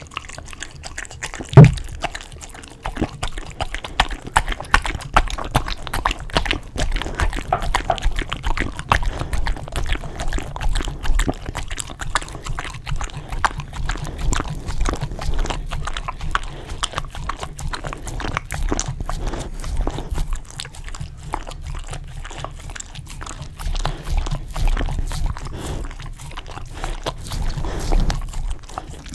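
Close-miked Samoyed dog licking yogurt off a glass and a wooden board: a fast, continuous run of wet tongue smacks and clicks. There is one sharp knock about a second and a half in.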